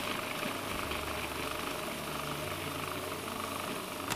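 Electric countertop blender running steadily, grinding chopped leeks and celery, then switched off abruptly at the very end.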